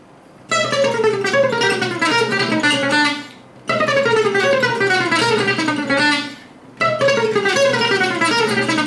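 Gypsy jazz (Selmer-Maccaferri-style) acoustic guitar playing a fast single-note D minor lick: a descending run over an A-sharp diminished position that resolves to D minor. The phrase is played three times with short pauses between.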